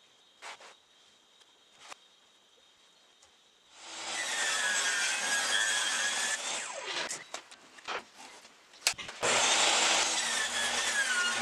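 Table saw ripping a thin wooden panel in two passes, its blade noise carrying a wavering whine. The first cut starts about four seconds in and stops near the middle; a sharp knock comes just before the second cut begins.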